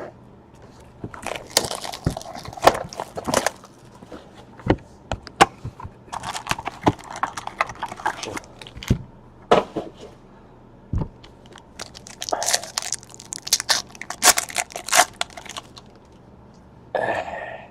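Trading-card pack wrappers being torn open and crinkled in three spells of a few seconds each, with scattered sharp clicks and taps between them.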